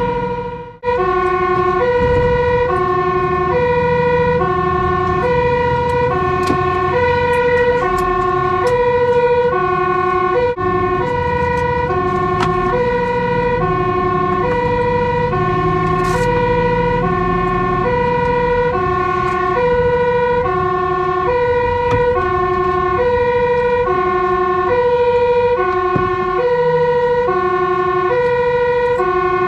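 Dutch fire engine's two-tone siren alternating steadily between a low and a high note, each held about half a second, over the truck's engine rumble. It cuts out briefly just under a second in, then resumes.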